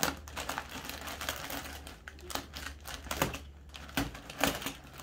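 Plastic courier bag crinkling and crackling as it is pulled and torn open by hand: a run of irregular crackles, with a few louder snaps in the second half.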